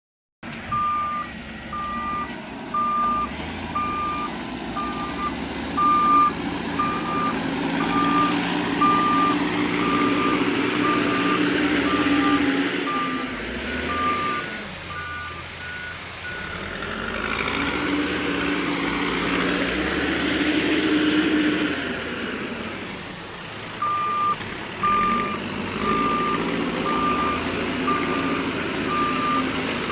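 Mahindra backhoe loader working, its diesel engine rising and falling under load. A reversing alarm beeps about once a second for the first half, stops for a while mid-way, and starts again near the end.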